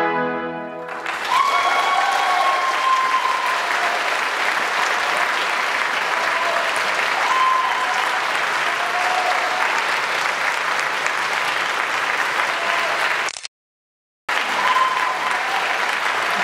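The orchestra's final brass-heavy chord cuts off in the first second, and the audience breaks into loud, sustained applause with a few shouts over it. The sound drops out completely for about a second near the end.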